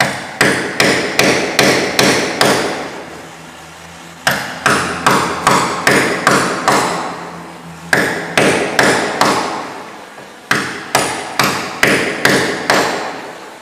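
Igniter of a handheld propane torch clicking in four bursts of six or seven sharp clicks each, about two or three a second, with short pauses between bursts: repeated tries at lighting the torch.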